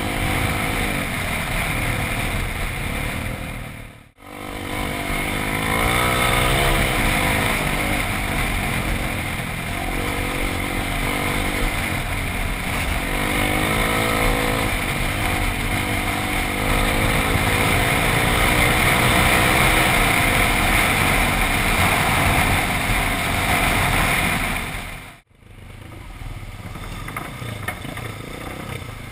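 Dirt bike engines running along a gravel trail, heard from a helmet-mounted camera, the engine pitch rising and falling with the throttle over a steady rush of noise. The sound cuts out briefly twice, and near the end it is quieter as the bikes slow.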